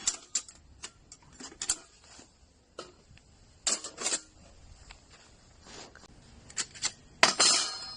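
Metal parts of a folding camping fire pit being handled: scattered clinks and light rattles, with a few louder clatters and the loudest about seven seconds in.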